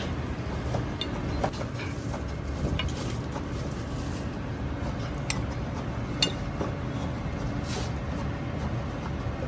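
Metal serving tongs lifting stir-fried lamb off a ceramic plate into a rice bowl, with a few light clinks against the dishes, the clearest about five and six seconds in, over a steady low background rumble.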